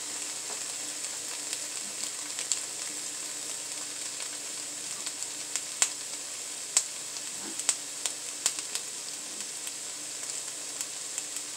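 Diced white onion and red pepper sizzling in hot grease in a frying pan: a steady hiss with a handful of sharp pops of spattering fat around the middle.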